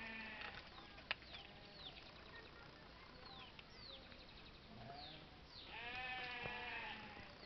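Farm animal calls: a short call at the start and a longer, louder, wavering call about six seconds in. Faint high falling chirps and a sharp click come in between.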